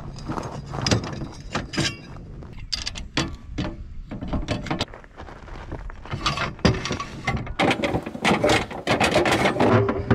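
Old Lippert fifth-wheel landing gear jack being taken off by hand: irregular metal clanks, rattles and scraping as its foot comes off and the leg is worked up out of its mount. The noise is busiest in the last few seconds.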